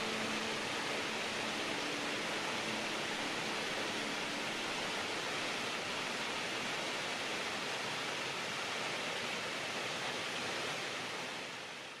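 Steady rushing of water, an even hiss that fades out near the end.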